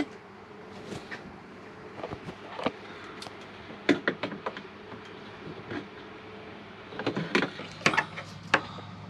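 Scattered light clicks and knocks of hand work on the roof air conditioner's mounting bolts while they are tightened, coming more often in the last couple of seconds, over a faint steady hum.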